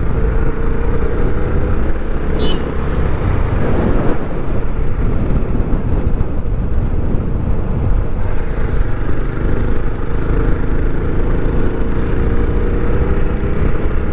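TVS Apache RTR 160 motorcycle's single-cylinder four-stroke engine running at a steady cruise, with wind rushing over the microphone.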